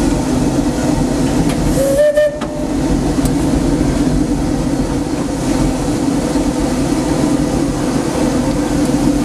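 Steady rumble and hiss of the 4-4-0 steam locomotive C.K. Holliday under way, heard from inside its cab. About two seconds in, a short tone sounds for about half a second.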